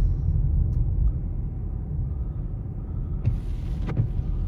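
Steady low rumble of a car driving slowly on an icy, wet road, heard inside the cabin: engine and snow tyres. There is a brief hiss a little after three seconds in.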